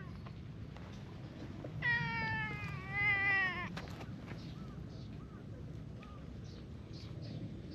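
Brown tabby cat meowing loudly twice in quick succession about two seconds in, each meow bending down in pitch at its end.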